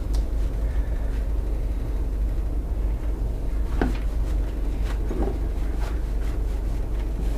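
Steady low hum, with a few soft rustles and taps from hands rolling a sushi roll in a bamboo mat and cling film; the clearest tap comes about halfway through.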